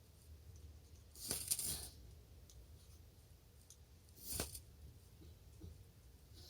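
Small wood fire crackling with faint scattered pops, and two louder, brief rattling crackles, the first about a second in and the second about four seconds in.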